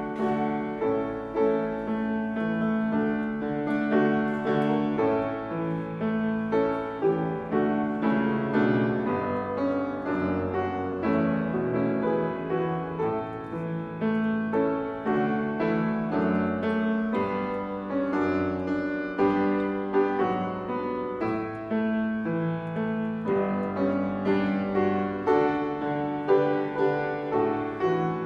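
Background piano music: a steady flow of notes over held low notes.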